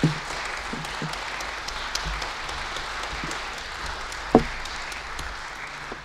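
Audience applauding with a steady patter of clapping that dies away near the end, broken by a single louder knock about four seconds in.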